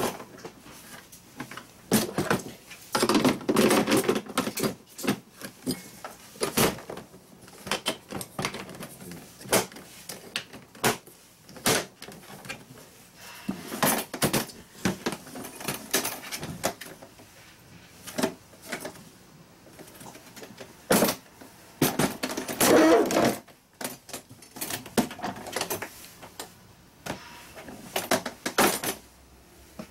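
Hard plastic toolbox and cart being handled: lids, latches and parts knocking and clattering in irregular clicks and thumps, with denser clattering a few seconds in and again about two-thirds through.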